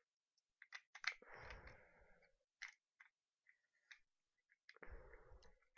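Faint handling of small parts while fitting a piece into a stripped PC356 pistol: a few sharp clicks and two short stretches of soft scraping, one about a second in and one near the end.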